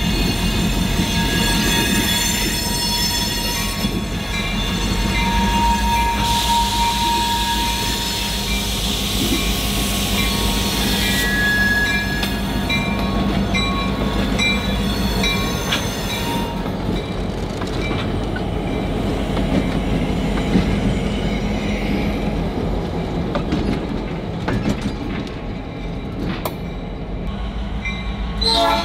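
Grand Trunk Western GP38-2 diesel locomotives rolling slowly past at close range, engines rumbling, with wheel flanges squealing on the curved track. A ring repeats about twice a second through the first half and again near the end, and a horn starts sounding at the very end.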